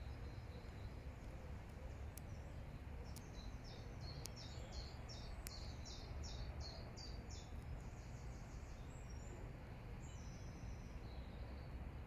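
A songbird singing a rapid series of high, repeated notes for several seconds, over a steady low rumble of outdoor background noise.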